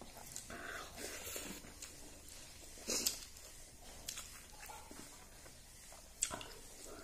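Close-up eating by hand: fingers working rice and curry on a metal plate and the mouth chewing, with soft squishy and smacking sounds and a few sharp clicks, the loudest about three seconds in and another about six seconds in.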